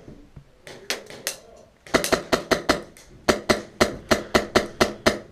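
Airsoft gunfire inside a wooden shed: a few single sharp cracks, then a rapid, even string of sharp cracks at about six a second, broken by a short pause near the middle.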